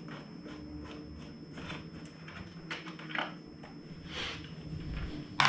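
Light clicks and scrapes of a motorcycle's plastic body panel and its fasteners being worked loose by hand, with a sharp clack near the end.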